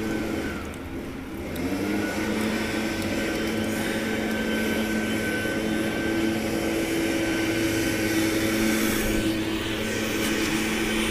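Steady mechanical hum of a motor or fan running. Its pitch rises briefly about two seconds in, then holds steady.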